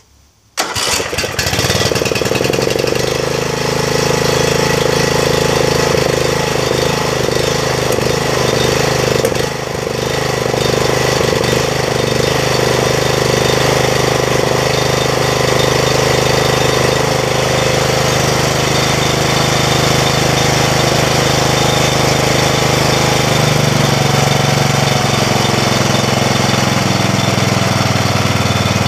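Snapper rear-engine riding mower's engine cranked on its electric starter, catching within about a second and then running steadily. The level dips briefly about a third of the way in and the engine speed changes near the end.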